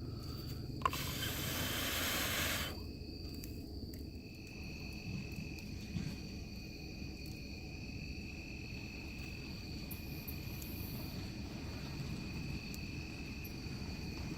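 Steady, high-pitched chirring of night insects, with a brief hissing rush about a second in and a couple of faint clicks.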